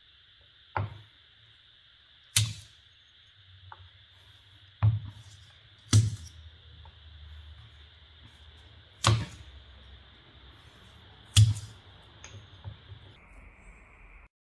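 Six sharp knocks of wood on wood at irregular intervals, with a few lighter taps between them, over a faint steady hiss that stops near the end.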